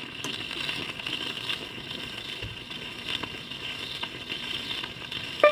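Surface noise from a 78 rpm lateral-cut lacquer acetate disc playing in the unrecorded groove: steady hiss and crackle with scattered clicks. A sharp click comes near the end as the recorded music begins.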